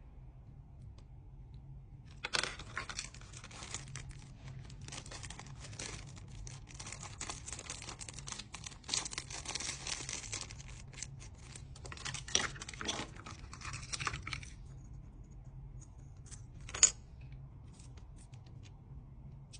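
Toy packaging being torn open and crinkled: about twelve seconds of dense crackling and tearing, then a few scattered taps and clicks, one of them sharp and loud near the end.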